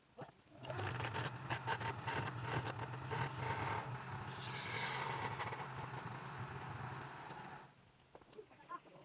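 Woodturning lathe running with a cutting tool scraping against the spinning wood: a dense, scratchy scraping over a steady motor hum. It starts about half a second in and stops shortly before the end.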